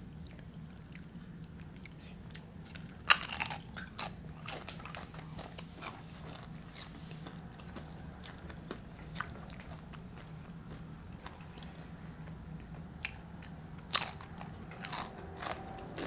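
Tortilla chips being bitten and chewed close to the microphone, crunching and crackling. There are two clusters of loud crunches, about three seconds in and near the end, with softer chewing between, over a faint steady low hum.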